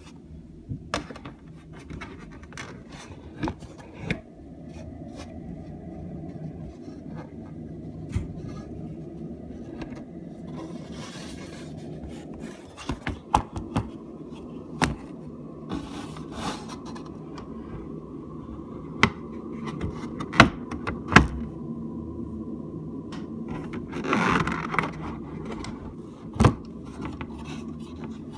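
Scraping, rubbing and sharp clicks of something being moved against the plastic housing of a centrifugal exhaust fan, over a steady low hum, with a few loud clicks near the end.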